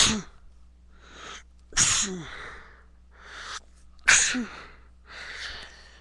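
A person sneezing three times in a row, about two seconds apart, each a sharp burst. The sneezes are set off by loose dog hair tickling the nose.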